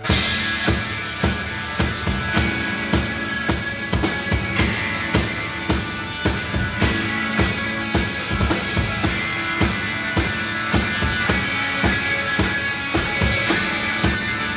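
Rock band playing an instrumental passage live, with no singing: a steady drum-kit beat under electric guitar and bass.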